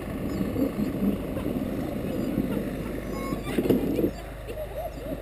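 Dog sled moving over packed snow: the runners scraping and the sled rattling, easing off about four seconds in.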